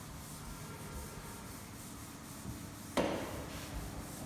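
Chalkboard duster rubbing chalk off a blackboard in faint scrubbing strokes, with one sharp knock about three seconds in.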